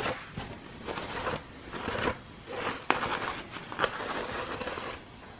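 Cloth rag rubbed in repeated wiping strokes across the machined deck face of a Toyota 2JZ aluminium cylinder head, with two sharp clicks about three and four seconds in.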